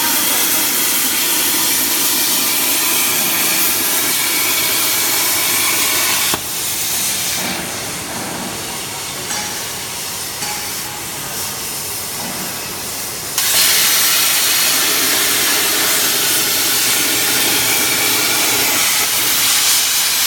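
CNC plasma torch cutting 12 mm stainless steel: a loud, steady hiss of the arc and gas jet. About six seconds in the hiss drops away suddenly to a quieter rush, and about seven seconds later it comes back at full strength.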